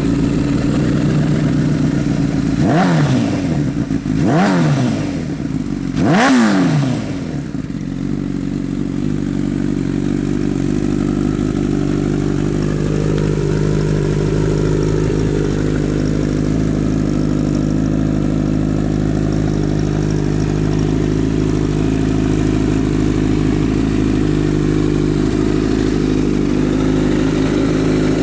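Honda CBR1000RR SP's inline-four engine through a loud aftermarket exhaust, idling and blipped three times in quick succession, about three, four and a half and six seconds in. Each blip rises and falls back fast, and the engine then idles steadily.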